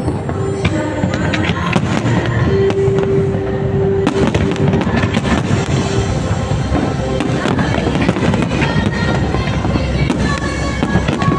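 Fireworks display: aerial shells bursting and crackling in rapid, overlapping succession, with music playing underneath.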